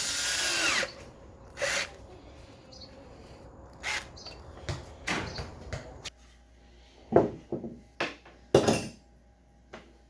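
A power tool running in a short burst that cuts off under a second in, followed by scattered knocks and clicks of parts and tools being handled.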